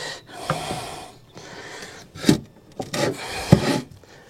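Rubber scooter tyre scraping and rubbing against the wheel rim as it is worked onto the rim by hand, with a few sharp knocks.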